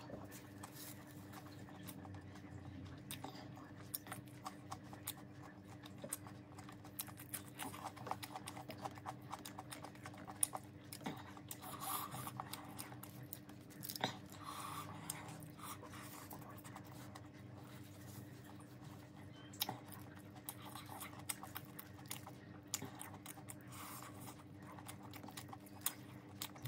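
Faint, scattered soft clicks and rustles of fingers mixing biryani rice and salad leaves on a plate, with some quiet eating sounds, over a faint steady hum.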